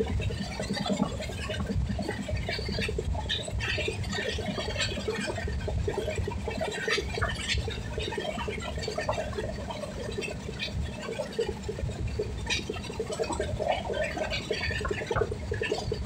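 Passenger train running on the rails, heard from inside the carriage: a steady rumble of wheels on the track with scattered rattles and clicks.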